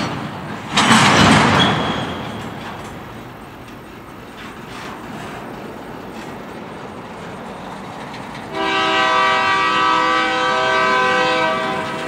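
Double-stack container train rolling past with steady wheel-on-rail noise, with a loud rushing surge about a second in. From about eight and a half seconds a locomotive's multi-note air horn sounds a chord for roughly three and a half seconds.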